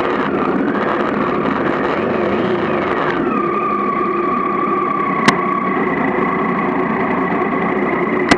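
Triumph Tiger 955i motorcycle's three-cylinder engine running; its pitch wavers for the first three seconds, then falls and settles to a steady drone. A sharp click about five seconds in and another near the end.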